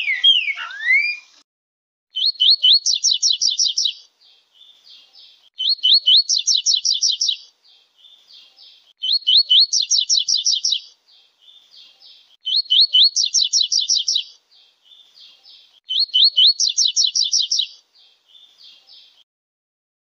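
A green-winged saltator's whistled song ends about a second in. Then a double-collared seedeater sings the same short phrase five times, about every three and a half seconds: a few rising notes running into a fast trill, followed by softer buzzy notes.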